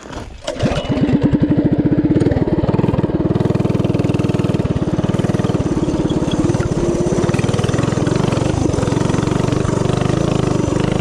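Predator 212 single-cylinder four-stroke engine on a Coleman CC100X mini bike, governor removed and stage 1 kit fitted, running hard with an even, rapid firing pulse. It comes in sharply at the start, then holds steady.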